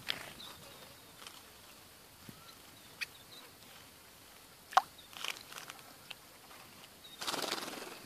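Small birds, red-vented bulbuls among them, bathing in a shallow pool: scattered short sharp chirps and clicks with faint high call notes, the loudest chirp a little past the middle, then a burst of bathing splashes and wing flutter near the end lasting under a second.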